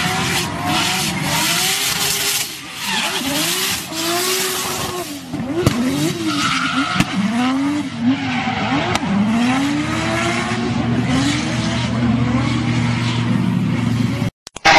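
A car doing a burnout: the engine revs up and down over and over while the spinning tyres screech, with a couple of sharp cracks about midway.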